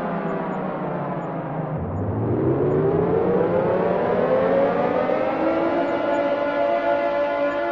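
Air raid siren winding down: its pitch falls to a low growl about two seconds in, then climbs back up and levels off into a steady wail.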